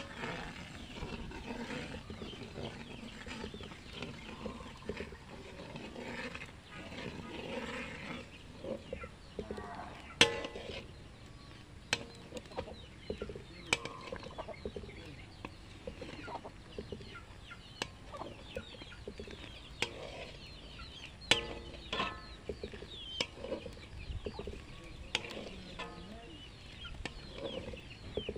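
Chickens clucking, with a few sharp knocks now and then.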